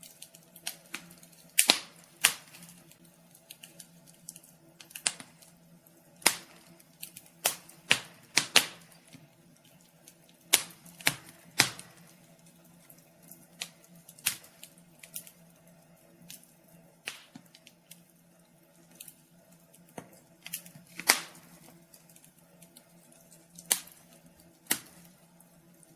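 Wood fire crackling: irregular sharp pops and snaps, a few much louder than the rest, over a faint steady low hum.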